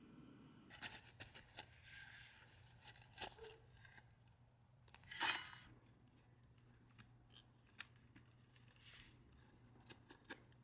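Kitchen food-preparation sounds: a run of small clicks and short scraping, cutting noises, with one louder swish about five seconds in, over a quiet background.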